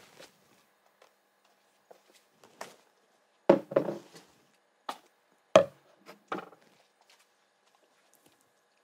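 A ceramic mug and bottles being handled and set down on a desk: a handful of separate knocks and clacks, mostly in the middle of the stretch.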